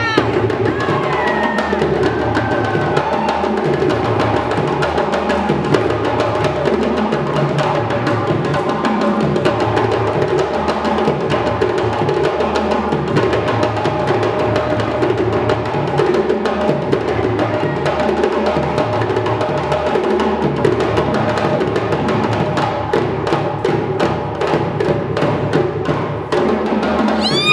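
An ensemble of djembe hand drums played live in a fast, dense rhythm, with a low pattern repeating about every second and a half. A brief shrill whistle-like call sounds at the very start and again at the end.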